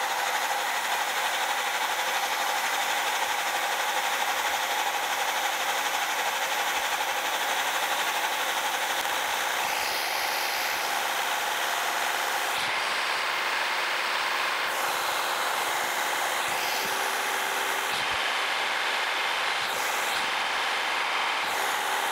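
A Wells-Index vertical milling machine running an end mill down into a steel part to cut a slot. It is a steady machining noise with a constant whine, and a second, lower hum joins about halfway through.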